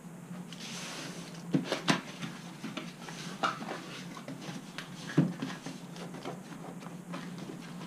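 Cardboard boxes being handled and opened: scraping and rustling of cardboard as a product box comes out of its shipping carton and its end flap is pulled open. A few sharp knocks from the box meeting the countertop, two close together near the second mark and the loudest about five seconds in.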